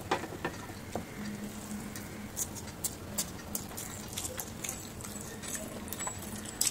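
Fingers mixing rice into a thick fish curry gravy on a plate: soft, wet, sticky squishing with many short clicks, over a faint steady hum.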